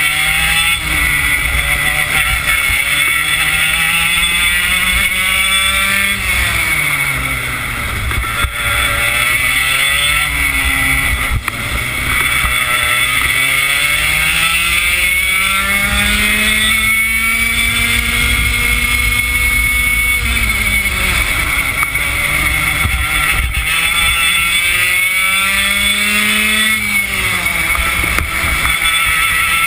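Yamaha KT100 single-cylinder two-stroke kart engine at racing speed. Its pitch climbs for several seconds at a time and drops sharply as the driver lifts off for the corners, four times over the lap.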